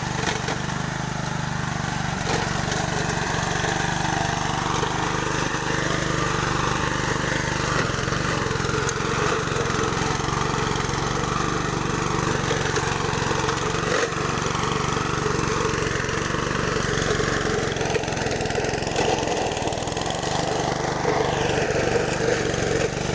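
Honda self-propelled lawn mower engine running steadily as the mower drives itself along under its own power.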